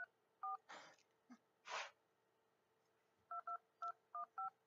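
Original iPhone (iPhone 2G) phone keypad playing touch-tone beeps as digits are tapped: two beeps, then a run of five quick ones about three seconds in. Two short hissy noises come in between.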